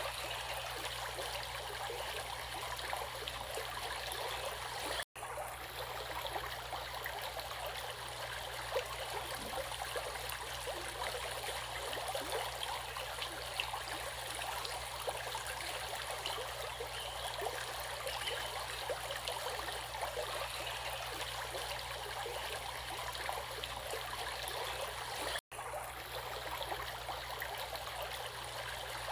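Steady rush of flowing stream water, broken twice by a split-second dropout to silence.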